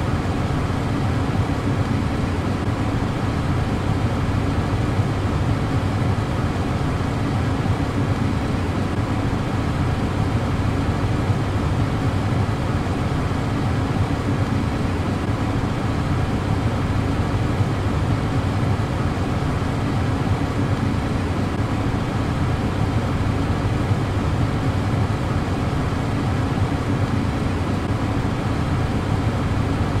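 A car's ventilation fan blowing air through the dashboard vents: a steady, unchanging rush of air, heaviest in the low range.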